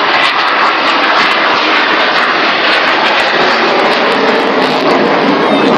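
Engine noise of a large aircraft flying over, loud and steady.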